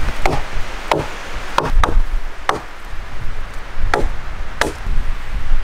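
Hatchet chopping into a wooden log: about seven sharp strikes at an uneven pace, with a longer gap in the middle.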